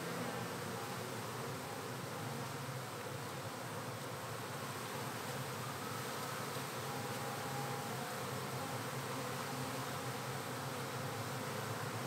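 Honeybees buzzing in a steady, even hum: a large cluster and the many bees flying around it, a colony stirred up by being brushed off its comb into a box.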